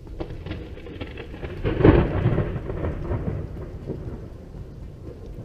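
Thunder from a close lightning strike about 400 m away. A deep rumble swells to its loudest about two seconds in, then rolls on and slowly fades.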